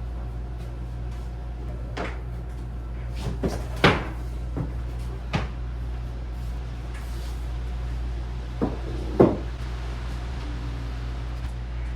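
About seven short knocks and clacks of household things being handled, the loudest about four and nine seconds in, over a steady low hum.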